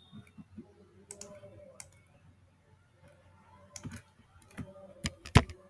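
Scattered clicks and taps of a computer keyboard and mouse, a few at a time, with a quiet stretch in the middle and the loudest clicks about five seconds in.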